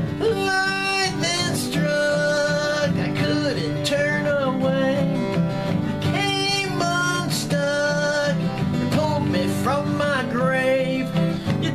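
A man singing a rock song over an acoustic guitar, with long held and sliding vocal notes.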